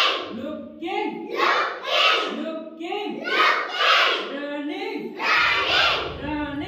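A group of young children chanting together in unison, in loud repeated phrases about once a second. A low rumble joins in about five seconds in.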